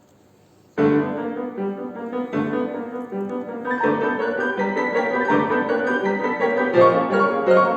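Piano played six hands: after a brief hush, the music comes in suddenly less than a second in with a dense passage of many quick notes, growing busier and brighter in the upper register.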